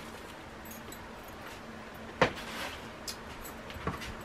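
Dry breading mix poured from its box into a plastic shaker container, with a sharp knock about two seconds in and two lighter clicks after it as the plastic container is handled.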